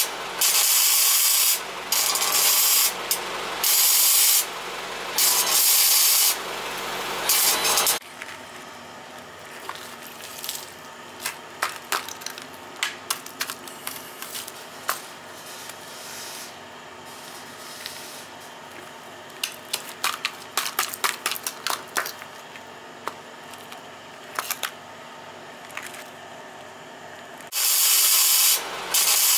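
Electric arc welding on a steel column: the arc crackles and hisses in stretches of a second or two with short breaks, for about the first eight seconds and again near the end. In between is a quieter stretch of scattered small clicks and scrapes, as rusted-through steel at the column's base is broken away.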